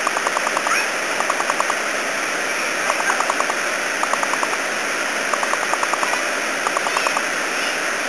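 Waterfall pouring steadily over rock into a pool, with short runs of rapid clicking, about ten clicks a second, coming every second or so.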